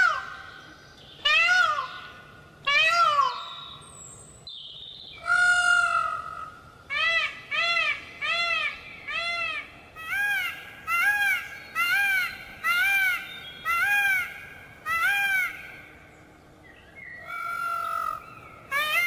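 Peafowl calling loudly: three sharp rising-and-falling screams, a longer held call, then a run of shorter arched calls about one a second. Another held call comes near the end, followed by a fresh run.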